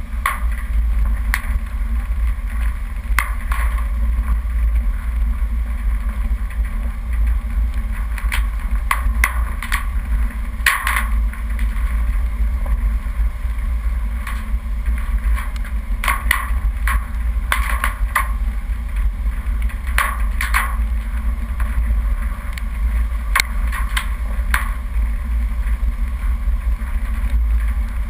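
Off-road vehicle driving down a rough dirt track: a steady low rumble of engine and road noise, with irregular knocks and rattles as it jolts over bumps.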